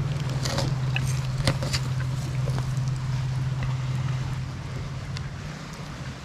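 A steady low engine hum, easing off a little near the end, with faint scattered clicks and scrapes from a knife cutting through the catfish's skin.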